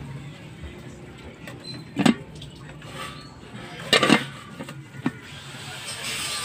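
Kitchenware clattering: two loud knocks with a short ring, about two seconds apart, and a smaller clink a second later, like pots, pans or dishes being set down and handled. A steady hiss sets in near the end.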